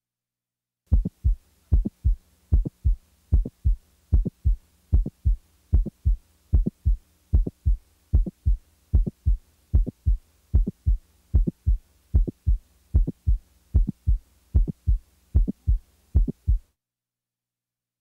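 Heart sounds in a regular rhythm: first and second heart sounds with a mid-systolic click between them, the click of mitral valve prolapse, with no murmur. The beats are short and sharp over a faint low hum, starting about a second in and stopping shortly before the end.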